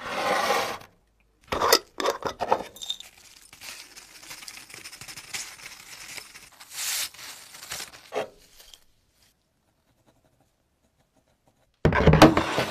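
Rust flakes and dust tipped off a folded sheet of sandpaper into a glass jar: paper crinkling, with grit and flakes pattering and clicking against the glass. Near the end, a plastic tub is pushed onto the worktop with a loud knock and scrape.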